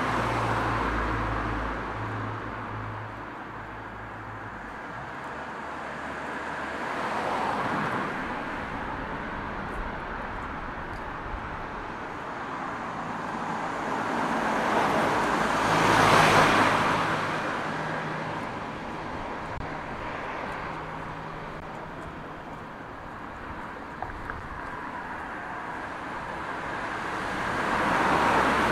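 Road traffic: several cars pass one after another, each swelling and fading in tyre and engine noise, the loudest about halfway through, over a low engine hum.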